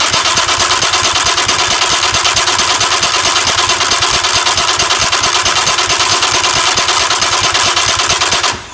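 A VW Polo 1.4 car starter motor fitted to a 1996 Yamaha 20 hp two-stroke outboard, spinning the engine over by its flywheel: a loud, steady whir with an even, fast pulse. Near the end the starter lets go and its whine falls away.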